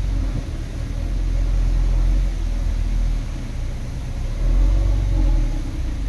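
Diesel engine of heavy earthmoving machinery running, a deep continuous rumble that swells and eases a couple of times.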